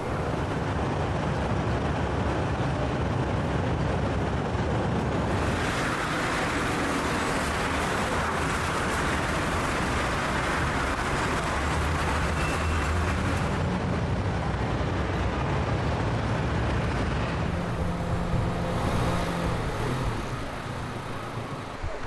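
Steady vehicle and traffic noise with a low engine rumble, and a louder rushing hiss for several seconds in the middle.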